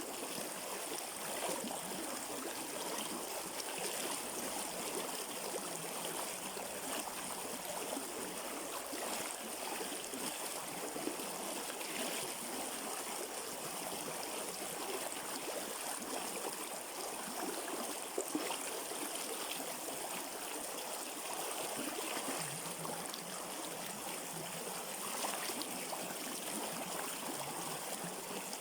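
River water flowing, a steady, even rush of running water.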